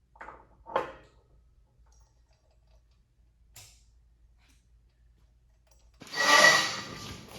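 Two short knocks in quick succession, a faint click a few seconds later, then a louder noisy clatter with a thin ringing tone from about six seconds in.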